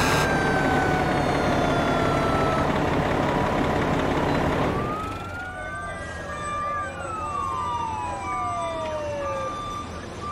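Fire engine siren over a heavy engine-and-road din, its pitch sliding slowly downward. About five seconds in, the sound changes to quieter siren glides, rising and falling, with a short beep repeating about twice a second.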